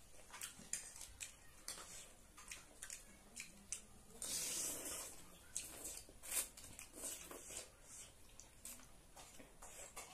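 Mukbang eating sounds: instant noodles being slurped and chewed, with many short clicks of spoons and forks against plates, and one longer slurp around the middle.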